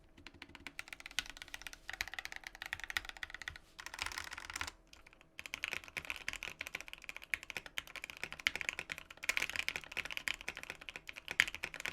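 Typing on a Satisfaction75 custom mechanical keyboard with Banana Split linear switches lubed with 205g0, an FR4 plate and a tape mod: rapid, continuous keystrokes with a brief pause about five seconds in.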